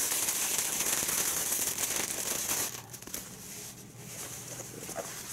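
Thin clear plastic garment bag crinkling and rustling as it is pulled open and the pants are slid out. The crinkling dies down about three seconds in, leaving only faint handling sounds.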